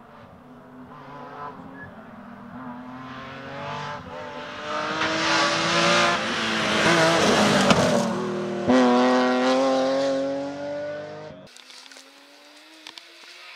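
BMW Z3 M rally car's straight-six engine at full throttle as it approaches and passes, its pitch climbing and shifting with gear changes and loudest in the middle. Near the end the sound switches abruptly to a fainter, distant engine rising in pitch.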